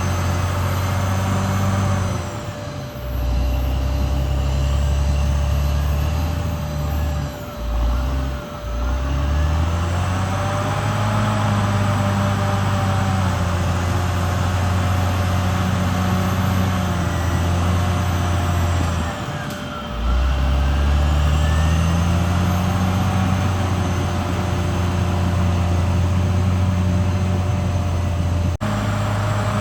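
Caterpillar D6R XL bulldozer's diesel engine running hard, its pitch sagging and picking back up three times as the load on it changes.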